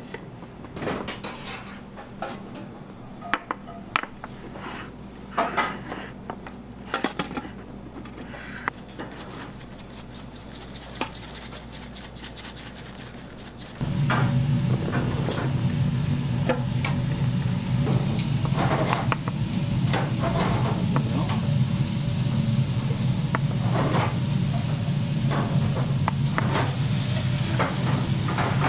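Kitchen prep sounds: scattered clinks and knocks of metal pizza pans and utensils being handled. About halfway through, a steady low hum sets in under the clinking.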